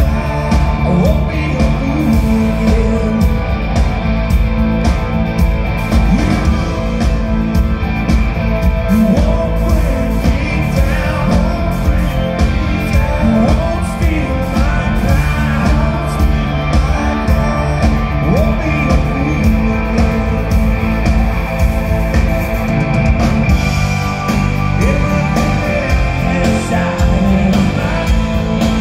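Live blues-rock band playing loud through the PA, with electric guitar, bass guitar and drum kit and a man singing over them, heard from the audience.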